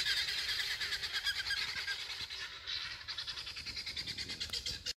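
Guinea fowl calling in a fast, rattling chatter of many repeated calls, the flock's noise slowly fading as the birds move off, then cut off suddenly near the end.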